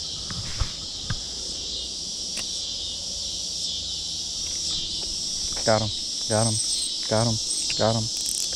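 Steady, high-pitched chorus of insects. From about two-thirds of the way in, a low, wavering, pitched call repeats about every two-thirds of a second over it, louder than the chorus.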